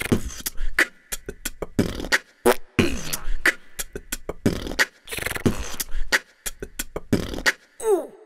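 Beatboxing: a voice making rhythmic mouth-drum sounds, deep booms and sharp clicks, with a run of falling-pitch chirps starting near the end.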